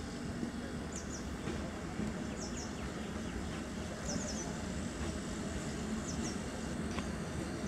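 Diesel multiple-unit local train approaching slowly, a steady low rumble with no horn. A bird gives a few short high downward chirps over it.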